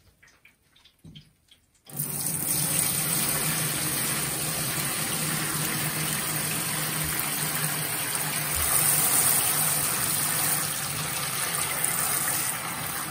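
Cleaning solution made from dissolved washing powder poured from a plastic bucket onto the perforated steel grate of a parts-washer cabinet, splashing through it and draining into the tank below. The pour is a steady gush that starts about two seconds in and eases slightly near the end.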